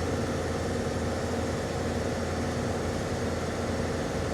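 Mercedes CLA 45 AMG's turbocharged 2.0-litre four-cylinder engine idling steadily, with a misfire on cylinder number 4.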